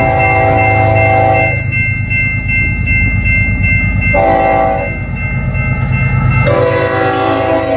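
BNSF diesel freight locomotives' air horn sounding in a long–short–long pattern: a long blast that ends about a second and a half in, a short blast past the middle, and another long blast starting near the end. Beneath it runs the low rumble of the lead locomotives passing close by.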